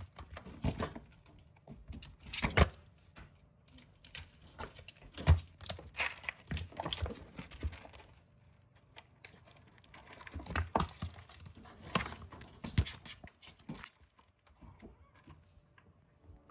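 Kittens scampering and playing in a wire cage: an irregular patter of paws and claws with light knocks and scratches, a few of them sharper.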